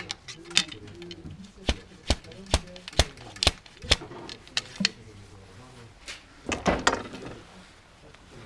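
A ramrod strikes down the barrel of a muzzle-loading double-barrel coach gun, seating the charge with a run of sharp knocks at about two a second. A longer scraping rustle follows about six seconds in.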